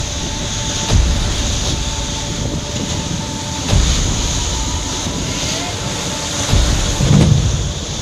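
Steady drone of ship's engines mixed with rushing wind and sea, with heavier surges of noise about a second, four seconds and seven seconds in.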